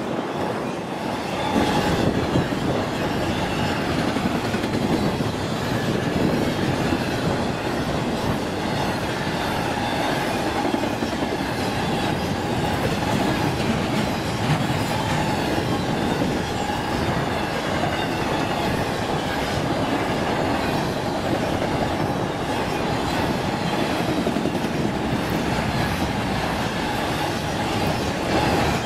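BNSF intermodal freight train, flatcars loaded with trailers and containers, passing close at speed: a steady rumble and clatter of steel wheels on the rails.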